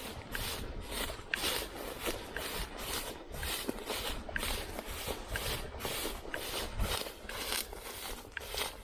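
Footsteps through tall dry grass, legs and clothing swishing through the stalks at a steady walking pace of about two strides a second.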